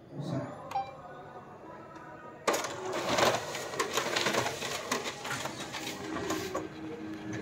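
Canon imageRUNNER ADVANCE 4545i copier starting a copy job: a couple of short clicks, then about two and a half seconds in the machine suddenly starts running with a loud mechanical whir and clatter as its document feeder and copier mechanism get going.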